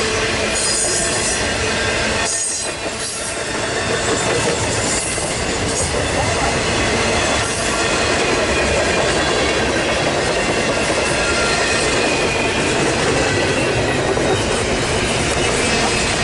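Long intermodal freight train rolling past: a steady loud rumble and clatter of steel wheels on rail, with faint high-pitched wheel squeal at times.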